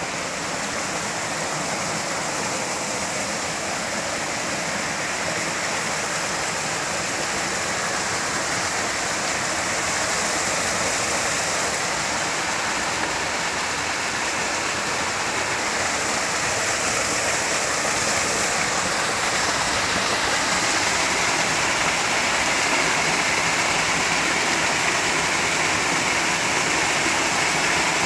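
Small jungle stream rushing over rocks in a little cascade: a steady noise of running water that grows slowly louder toward the end.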